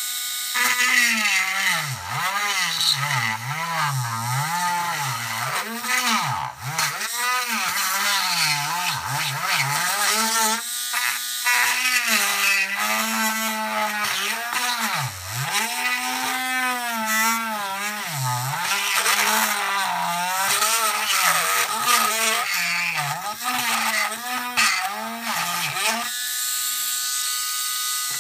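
Small handheld electric rotary tool cutting into a hard plastic toy car shell: the motor's pitch sags and recovers over and over as the bit bites into the plastic. Near the end it runs at a steady pitch, free of load.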